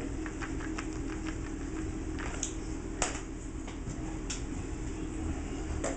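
Microwave oven running with a steady hum while a potato cooks, with scattered light taps and clicks over it.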